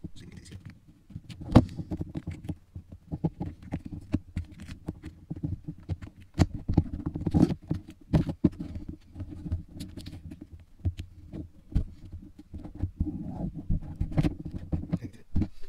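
Handling noise from carbon fibre vinyl wrap being rubbed, pressed and smoothed by hand onto a plastic climate control bezel: irregular small clicks, crinkles and light knocks against the workbench.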